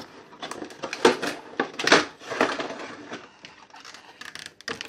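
Small plastic toy figures and accessories being taken out of a cardboard-and-plastic box: scattered clicks and taps, the loudest about one and two seconds in.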